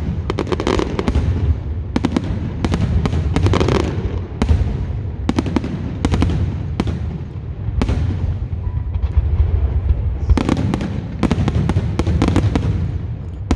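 Fallas fireworks display: a dense run of bangs and crackles over a continuous low rumble, with heavier volleys about half a second in, around three and a half seconds, and again from about ten to twelve and a half seconds.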